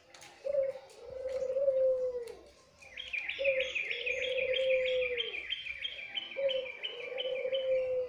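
White Barbary dove (puter) cooing three times, each call a short note followed by a long rolling coo that falls away at its end. From about three seconds in, a small bird chirps rapidly over the second and third coos, about four high notes a second.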